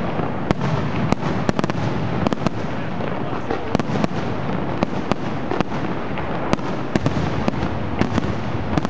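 Fireworks display: aerial shells bursting, many sharp bangs in quick, irregular succession over a steady low rumble.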